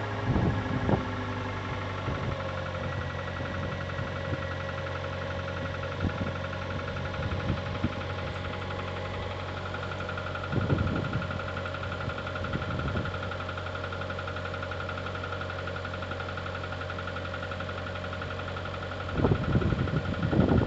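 Kia Sportage engine idling steadily with knocks in the motor, the fault the owner is recording. Short louder bursts come about ten seconds in and again near the end.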